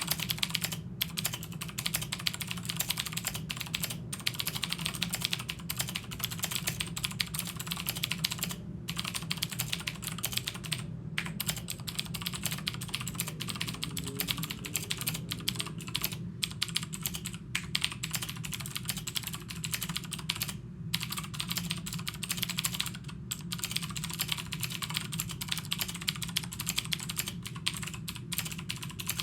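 Fast continuous typing on a Chicony KB-5581 keyboard with Cherry MX Blue switches: dense, crisp clicking keystrokes with a few brief pauses.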